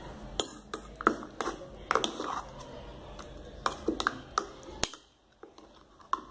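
Metal spoon scraping and tapping against the inside of a stainless-steel mixer jar of thick blended paste: a string of short, light clicks and knocks, dying away to near quiet about five seconds in.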